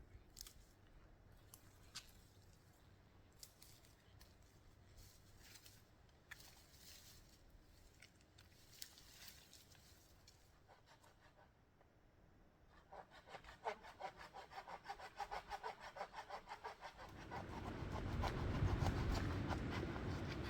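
Scattered light clicks, then about 13 seconds in a rapid rhythmic churning of about five beats a second, and about 17 seconds in a louder, low steady running sound: the 2017 Honda Africa Twin's parallel-twin engine being cranked and catching.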